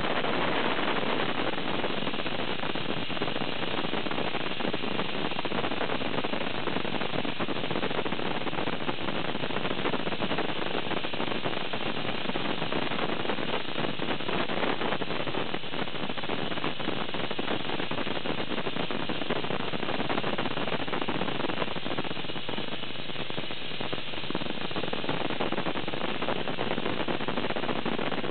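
Soda-blasting nozzle running steadily: a continuous hiss of compressed air and baking-soda media blasting bitumen off a tanker's painted panel.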